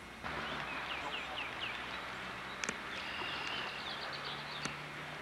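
Small birds chirping: a run of four short falling chirps about a second in and a quick trill near the end, over a steady hiss, with two sharp clicks in between.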